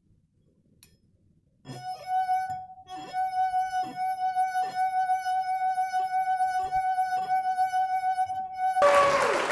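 Wine glass singing as a wetted finger rubs round its rim: one steady ringing tone with overtones, with faint regular pulses about every two-thirds of a second, starting a couple of seconds in. Near the end the tone gives way abruptly to a noisy rush.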